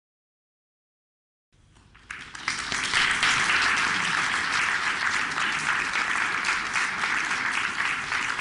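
Dead silence, then audience applause that starts about a second and a half in and quickly builds to steady clapping.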